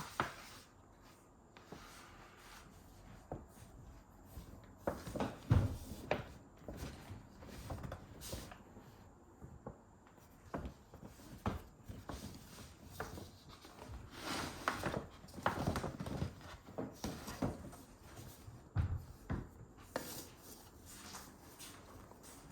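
Scattered handling noises at close range: light knocks and rustles coming irregularly, with a few louder knocks about five and a half seconds in and again near fifteen and nineteen seconds.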